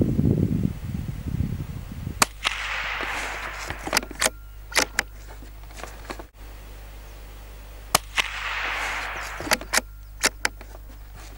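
Two .22 LR rifle shots about six seconds apart, each a sharp crack followed by a short rolling tail and a few fainter clicks. A low rumbling noise fills the first two seconds.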